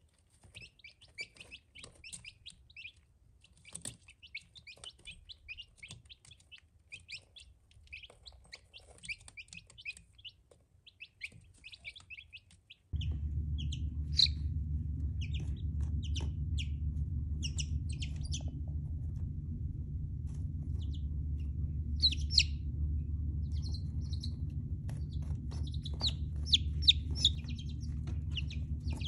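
Baby silkie chicks peeping, many short high calls, thick and constant at first and sparser later. About thirteen seconds in, a steady low hum starts under the peeps.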